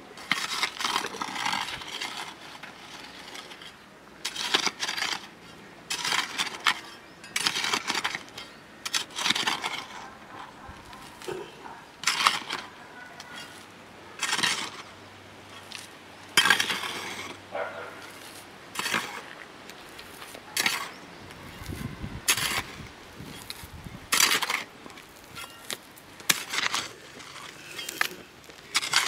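A hand hoe chopping into hard, stony soil, each stroke a crunching strike with loose pebbles and grit rattling after it, coming irregularly about every one to two seconds.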